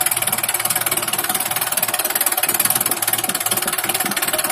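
Two tractors' diesel engines, the nearer a Sonalika AK-47, running steadily with a fast, even clatter while hitched back to back for a tug of war.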